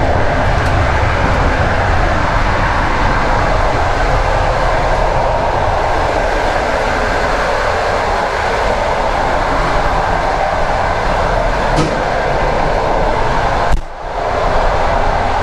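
Loud steady rumble and rattle of a moving passenger train's wheels on the rails, heard from inside the corridors and gangways between cars. There is a sharp knock near the end, after which the noise briefly drops.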